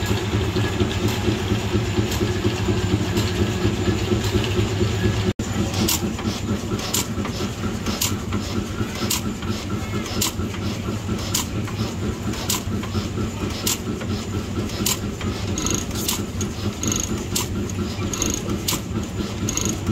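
Vintage stationary machinery running: first a belt-driven line-shaft rig with a fast, steady clatter, then a horizontal single-cylinder stationary engine running slowly, with a regular beat about once a second over a steady low running sound.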